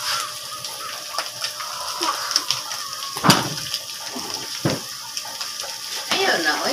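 Chopped duck meat sizzling in a wok, a steady hiss, with two sharp knocks a little over a second apart midway.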